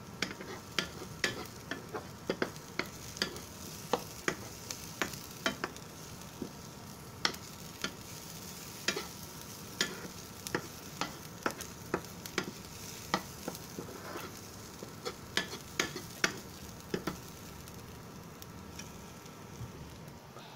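Metal spoon scraping and tapping against a nonstick frying pan while stirring chopped onions, over a steady sizzle of the onions frying. The irregular clicks of the spoon stop a few seconds before the end, leaving only the sizzle.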